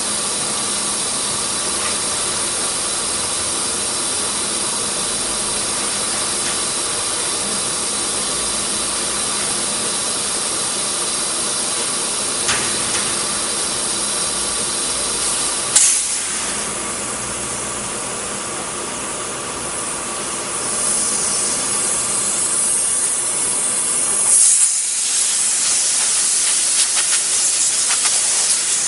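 CNC wood router running with a steady hum and whine. From about two-thirds of the way in, a compressed-air gun hisses louder and louder, blowing sawdust off the freshly carved panel, and near the end the hiss is the loudest sound.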